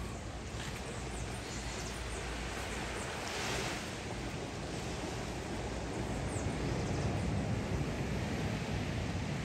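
Surf washing onto a beach with wind buffeting the microphone, one wave breaking a little over three seconds in.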